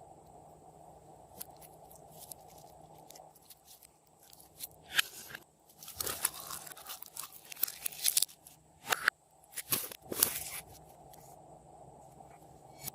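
Slime being worked by hand, giving sticky crackling and popping. A few scattered clicks come first, then a dense run of crackles and pops from about four and a half seconds in to about ten and a half, before it thins out again.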